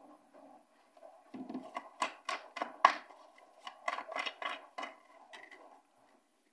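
Tarot or oracle cards being shuffled and handled on a table: a quick run of sharp slaps and clicks between about two and five seconds in.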